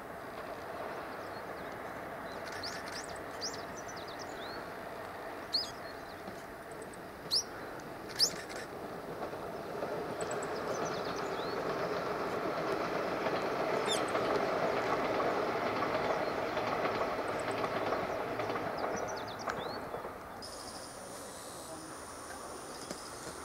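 Kamome limited express electric train running past at a distance, its rail noise swelling to a peak about two-thirds of the way through and then falling away. A few sharp bird calls come a few seconds in, and near the end insects buzz steadily at a high pitch.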